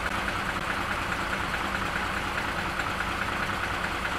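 Truck engine running steadily, a low rumble with an even, rapid pulse.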